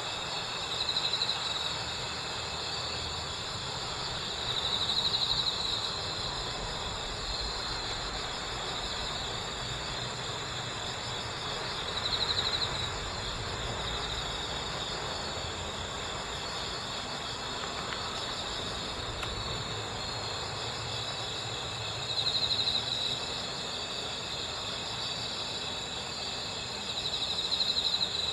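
Cricket (Gryllidae) singing: a nearby cricket trills in five bursts of about a second each, over a steady high ringing chorus of other insects.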